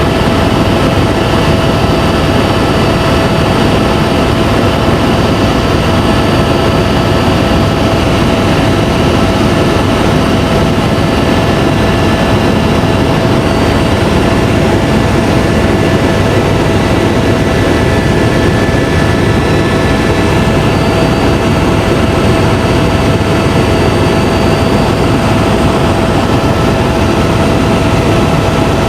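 Helicopter in flight, heard from inside the cabin: a loud, steady drone with a whine held at one pitch, unchanging throughout.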